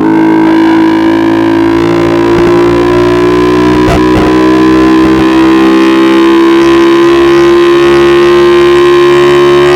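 Vehicle engine running hard at steady high revs, its pitch rising slowly and evenly as it gains speed.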